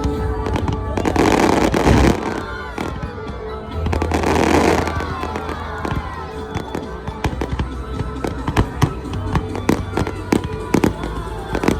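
Fireworks going off: a quick series of sharp bangs and crackles, with two louder crackling, hissing bursts near the start and about four seconds in, over a steady low hum.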